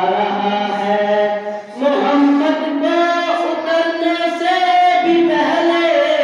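A boy singing a devotional chant into a microphone, with long held notes and a brief break for breath just under two seconds in.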